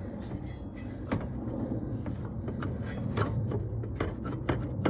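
Wrench tools working the threaded fan clutch loose from a truck's water pump shaft: scattered metallic clicks, knocks and scrapes over a low steady hum.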